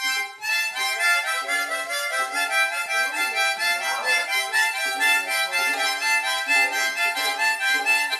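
A wind instrument played in quick, repeated chords, a busy rhythmic pattern of notes.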